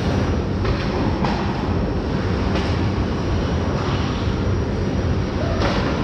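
Ice rink game noise: a steady rumbling hiss of skates on ice, with about five short sharp knocks of sticks or puck scattered through it.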